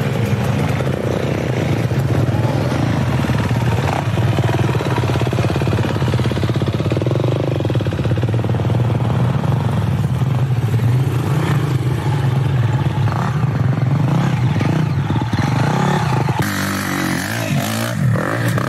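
Dirt bike engines running along a forest trail at a steady drone. About sixteen seconds in, a bike revs up and down as it climbs over rocks.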